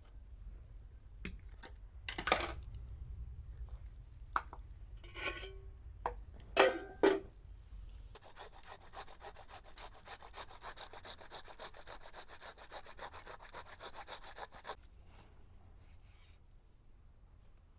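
A few sharp clatters of kitchen utensils, then about six seconds of quick, even rubbing strokes, several a second, of a utensil worked against a vessel.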